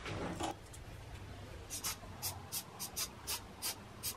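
Short puffs of compressed air from a blow-gun nozzle, quick hisses about three or four a second starting a little under two seconds in, blowing wet glaze across a fired pot. A soft knock comes at the start.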